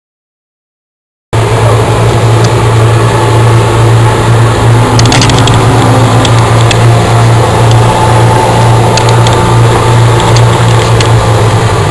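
Boat engine running steadily with a strong low hum, under a rushing noise of wind and water. It starts abruptly about a second in and cuts off at the end.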